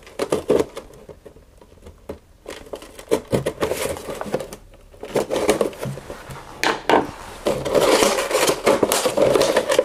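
Cardboard and plastic action-figure packaging being opened by hand. There are scattered taps and clicks as the box flap is worked open, then a denser rustling scrape from about seven and a half seconds in as the plastic tray is pulled out of the box.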